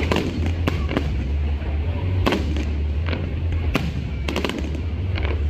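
Aerial fireworks shells bursting overhead in irregular sharp bangs, several close together at times, over a steady low rumble.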